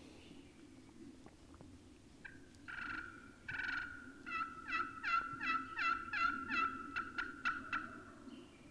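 Turkey yelping: two drawn-out rasping notes, then a run of about a dozen quick yelps, each dropping in pitch, the last few shorter.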